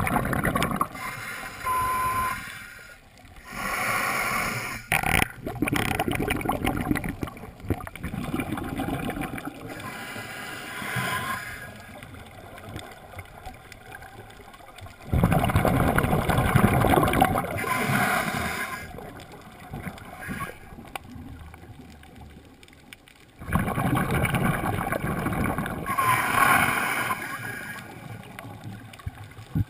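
Scuba diver breathing underwater through a regulator: exhaled bubbles rumbling and gurgling in bursts a few seconds long, with quieter stretches between breaths.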